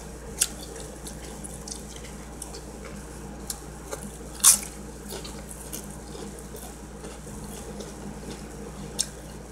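Quiet eating sounds: scattered soft clicks from chewing and handling a sandwich, with one sharper click about four and a half seconds in, over a steady low hum.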